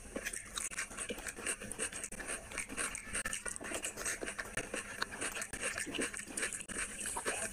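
Close-miked eating: wet chewing and lip-smacking as rice and curry are eaten by hand, with fingers squishing the rice and curry together on the plate. It comes as a dense run of small sticky clicks and smacks.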